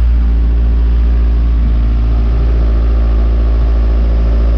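Steady, loud low drone of a camper van driving at constant speed, its engine and road noise holding one unchanging pitch.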